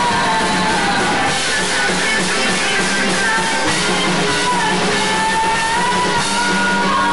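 Live band playing amplified rock music: a drum kit and electric guitars, with held, wavering melody notes over a steady bass line.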